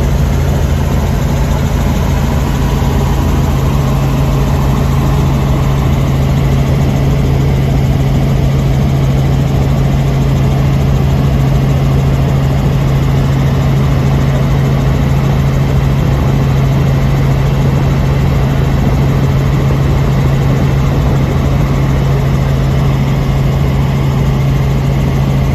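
Helicopter in flight, heard from inside the cabin: a loud, steady drone of engine and rotors, a strong low hum under a broad rush of noise.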